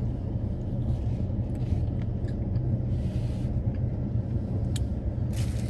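Steady low humming of a car idling with its air conditioning running, heard from inside the cabin. A brief rustle comes near the end.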